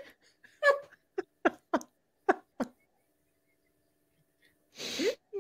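Stifled laughter from women holding their hands over their mouths: a string of short, squeaky bursts, then a breathy, gasping laugh near the end.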